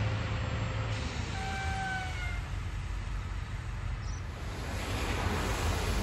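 Low, steady engine rumble, with a short falling whistled note about one and a half seconds in.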